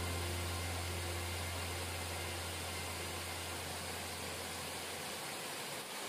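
Steady rush of water pouring over a concrete weir, with a low steady hum that fades out about five seconds in.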